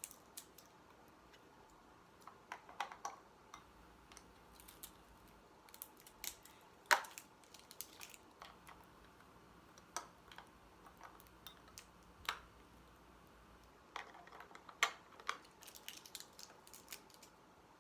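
Scattered, irregular clicks and taps of hard plastic being handled: a battery-powered LED makeup mirror being opened up and fitted with its batteries. The loudest snaps come about 7 s and 15 s in.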